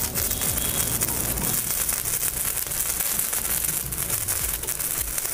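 Stick-welding arc crackling and sizzling steadily as it burns a sparkler's wire core, used as the electrode, onto old steel rods.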